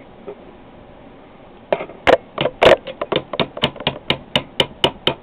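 Rapid tapping strikes driving out the retaining pin that holds the gas ram of a Benjamin Nitro Piston 2 air rifle, held under compression in a spring compressor. The tapping starts after a short pause, with two heavier blows first and then steady taps about four a second.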